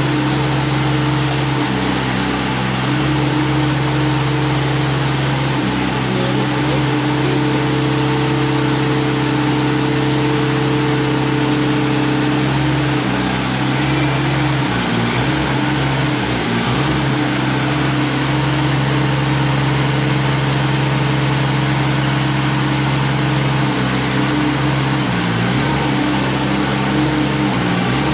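Remote-controlled demolition robot running with a steady drone from its power pack and hydraulics. The note sags in pitch briefly around the middle and again near the end as the boom and breaker arm move.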